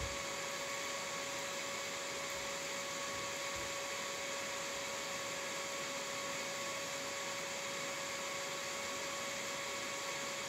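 Small transistor-driven Tesla coil running, its discharge between a wire tip and the secondary winding giving a steady hiss with a constant high hum.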